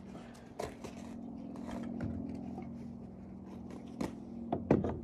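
Sharp clicks and knocks of a metal ice tool reaching onto a wooden climbing wall, loudest near the end, after a couple of lighter clinks earlier, over a steady low hum.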